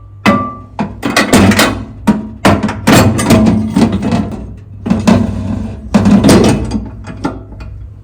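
Knocking and clattering as the microwave's parts are handled and put back, a series of sharp irregular knocks, with a brief beep at the start.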